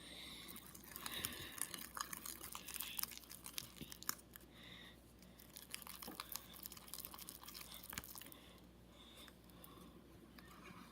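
Freshly activated, still-sticky slime being worked by hand, making faint irregular sticky clicks and crackles that come thickest in the first few seconds.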